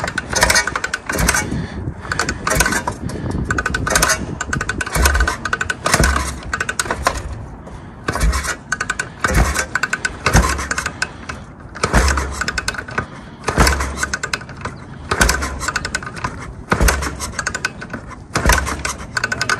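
1977 Yamaha TT500 single-cylinder four-stroke, on a little choke, being kick-started over and over, about ten kicks a second and a half or so apart. Each kick is a clatter with a short low thud from the engine, and it does not catch and keep running.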